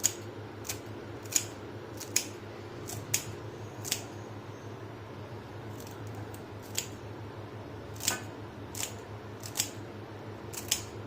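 Sharp, crisp snips as herbs are cut into small pieces by hand, about a dozen spaced irregularly with a pause of a few seconds in the middle. A steady low hum runs underneath.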